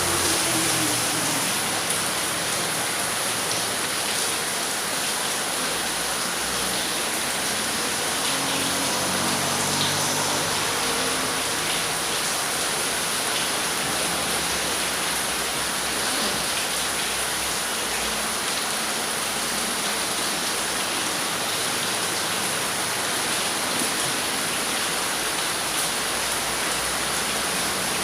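Stormy rain falling steadily, an unbroken rushing hiss.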